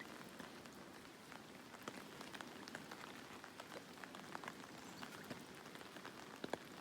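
Steady rain falling, with scattered raindrops ticking sharply and irregularly close by.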